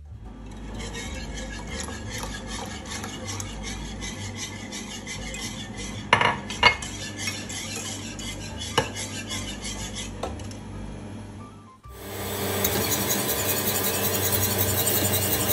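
Custard being stirred and whisked: a spatula scraping in a glass jug, then a wire whisk beating against a metal saucepan. There are a few sharp clinks about six and nine seconds in. The whisking gets louder about twelve seconds in.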